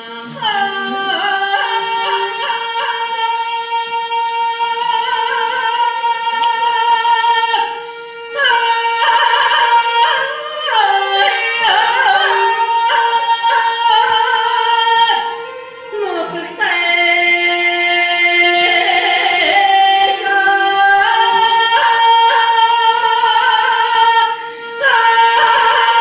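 Music: a high voice singing long, slowly wavering held notes over a steady low drone, in long phrases broken by short pauses about every eight seconds.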